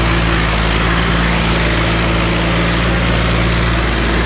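John Deere 5310 tractor's diesel engine running steadily under heavy load, pulling in a tractor tug-of-war with its rear tyres digging into the dirt.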